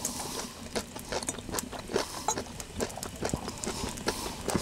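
Irregular small clicks and taps, several a second: forks on porcelain plates and chewing close to clip-on microphones as two people eat.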